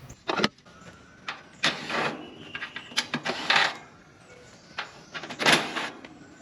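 Scattered clicks and knocks with a few short scraping rasps as the outdoor condenser unit of a heat pump is handled and taken apart. The loudest rasp comes a little past halfway.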